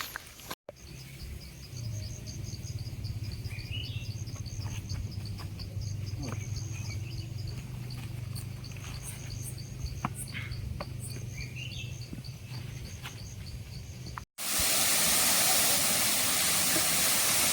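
Insects chirping in a fast, steady pulse, with two short rising bird calls and a low steady hum underneath. About fourteen seconds in the sound cuts to a much louder, even rushing noise.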